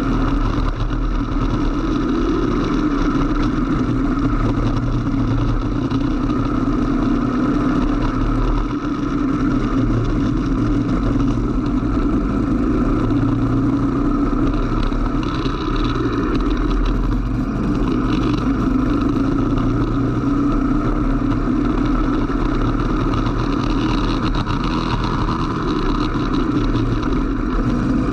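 Kart engine running hard under way, heard from on board the kart, its pitch shifting slightly as the kart slows for corners and speeds up again on a wet track.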